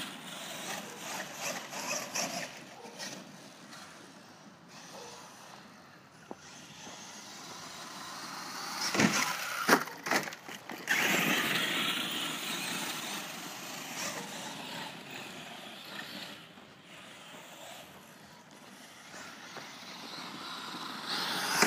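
Radio-controlled monster truck driving on gravel, its motor and tyres swelling and fading as it runs past. A few sharp knocks come about nine to ten seconds in, as the truck tumbles over.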